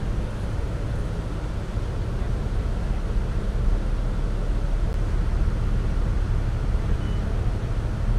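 A boat's engine running steadily under way, a continuous low rumble, with water rushing past the hull.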